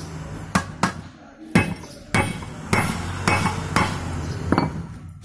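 A hammer striking a steel punch about eight times at an uneven pace, setting the rivets that fix a new lining onto a truck brake shoe, metal on metal.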